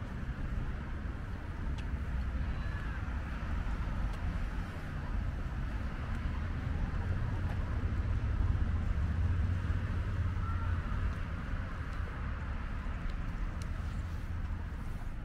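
Outdoor street ambience with a steady low traffic rumble, swelling as a vehicle passes about eight to ten seconds in.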